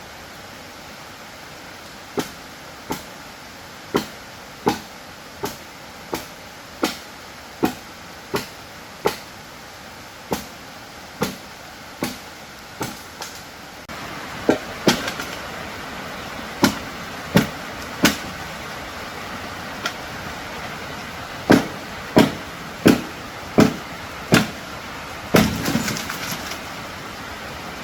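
A hand tool striking wood again and again, a sharp blow about every 0.7 s, some harder than others, with a longer crackling crash near the end.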